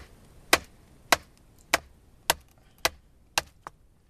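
A wooden baton striking the spine of a Schrade SCHF10 knife to split a large, wet log: sharp knocks evenly spaced about twice a second, seven in a row, then a softer one near the end.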